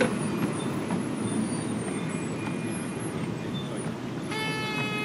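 Miniature railway passenger carriages rolling past on the track, with a steady rumble of wheels on rail. Near the end a brief, steady pitched squeal or call sounds for about a second.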